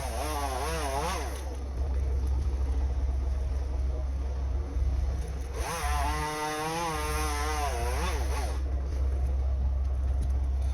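Small engine revving up and down in the background in two spells, near the start and again past the middle, over a steady low rumble.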